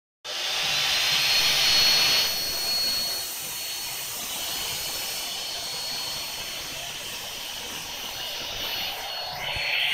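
Electric blower motor running steadily with a thin high whine and a rush of air, blowing through a hose to inflate a blue vinyl inflatable whale. The rush is loudest for the first two seconds, then settles lower.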